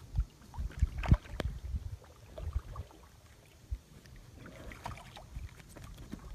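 Inflatable kayak out on the water: scattered knocks and bumps on the hull over a low rumble of wind and water, the loudest knock about a second in.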